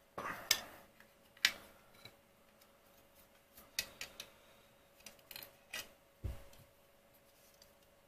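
Hard plastic model kit parts clicking and knocking as they are lifted off, set down on a rubber mat and fitted together by hand: scattered sharp clicks, with one duller thud about six seconds in.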